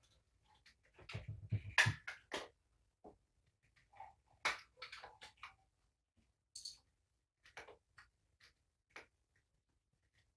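Small plastic medicine containers being handled: scattered light clicks and taps, a cluster in the first couple of seconds and then sparse single ticks.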